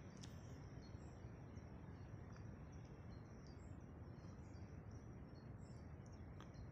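Faint open-air ambience: scattered short bird chirps over a steady low background rumble.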